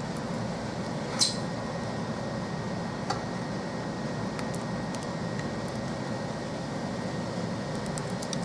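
Steady background hum with a sharp click about a second in and a fainter click around three seconds: small parts or tools being handled during a tablet repair.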